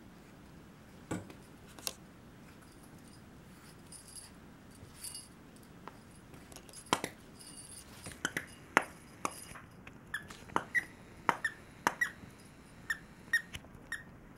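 Squeaker inside a plush fox dog toy squeaking as a Cairn terrier puppy chews it: a couple of short squeaks early, then a run of short, sharp squeaks about one or two a second through the second half.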